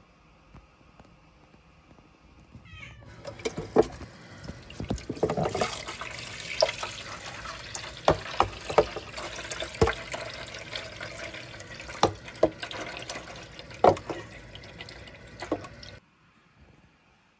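Running water and plastic clatter as a PetSnowy pet water fountain's plastic water tray and filter are taken off and rinsed by hand, with many sharp knocks of the plastic parts. It starts about three seconds in and stops abruptly near the end.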